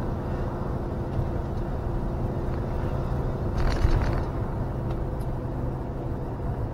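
Motorhome engine and tyre noise heard inside the cab while driving at steady speed, a continuous low hum. A brief louder rush of noise swells a little past halfway.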